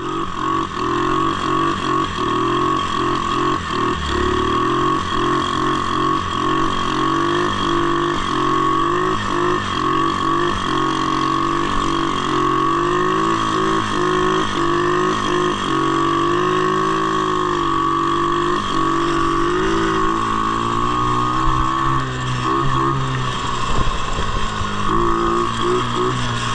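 An engine running steadily, its pitch shifting up and down, over a constant high whine.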